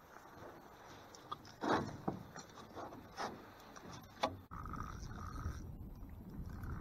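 A landed fish flopping in a rubber landing net inside an aluminium rowboat: several sharp knocks and scrapes against the hull, the loudest about two seconds in. About halfway through the sound cuts suddenly to a steady rush of wind and water.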